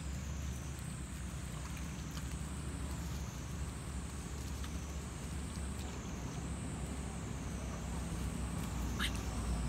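Young macaques splashing and wading in a muddy pool, heard faintly over a steady low rumble and a thin high whine that wavers up and down about every second and a half. A few short high squeaks come about nine seconds in.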